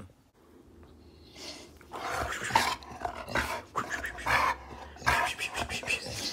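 Pit bull-type dog play-growling in a run of short, rough bursts while play-fighting a person's hand; the bursts start about a second and a half in.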